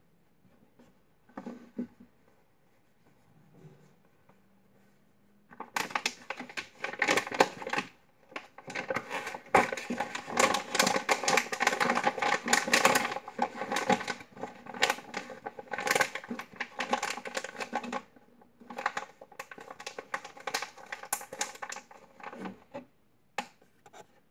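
Crinkling and rustling of a foil-backed plastic zip bag as folded boxer shorts are pushed into it. It starts about six seconds in, goes on in spells with brief pauses, and eases off near the end.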